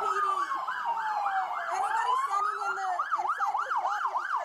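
Two emergency-vehicle sirens sounding at once: one in a rapid yelp, several quick rising-and-falling sweeps a second, the other in a slow wail that falls and then climbs again.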